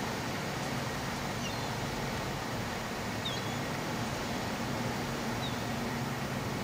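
Steady rushing noise of wind and water with a faint low hum beneath it, and three short, high bird chirps.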